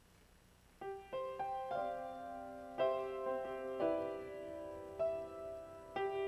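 Slow piano introduction starting about a second in: notes and chords struck every second or so and left to ring.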